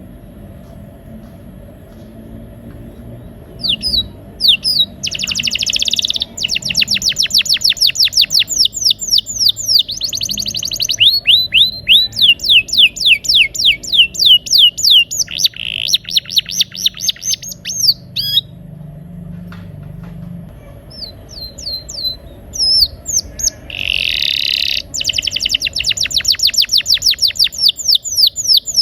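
Domestic canary singing rolling trills ("ngeroll"): long runs of fast, evenly repeated downward-sweeping notes, starting a few seconds in, with a pause of a few seconds past the middle before the song resumes. A steady low hum lies underneath.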